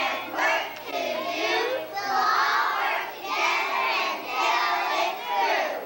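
Children singing: high young voices in phrases with short breaks, stopping just before the end.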